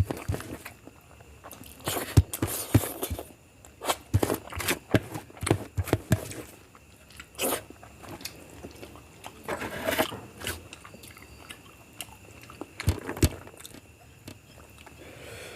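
Close-miked chewing and mouth sounds of a person eating biryani: irregular wet smacks, clicks and a few crunches, with brief rustling bursts.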